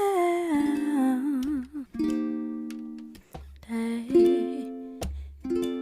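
Background music: a slow song with plucked guitar-like chords, low bass notes and a wordless sung line that slides downward early on.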